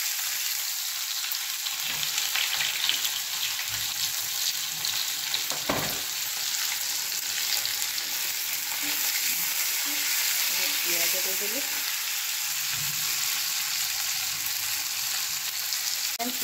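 Freshly added sliced onions sizzling steadily in hot oil in a black iron kadai, stirred with a steel spatula that knocks against the pan a few times.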